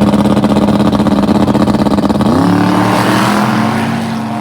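Drag racing car engine running at full throttle on a pass, holding a steady high note, with a second engine note gliding up about two seconds in. The sound fades near the end as the cars pull away.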